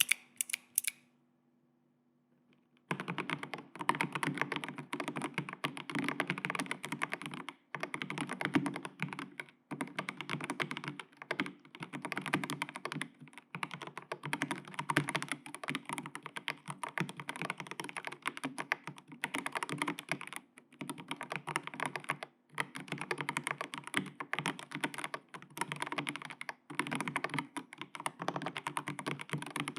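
Typing on a mechanical keyboard: factory-lubed MMK Flamingo switches on an FR4 plate, with TEX ADA keycaps, in a foam-filled Kishy Signature case. A few lone keystrokes at the start, then fast, continuous typing from about three seconds in, broken by a few short pauses.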